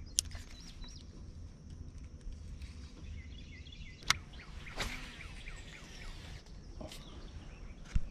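Birds chirping over a steady outdoor background of low rumble and hiss, with a few sharp clicks and knocks from fishing tackle being handled on the boat.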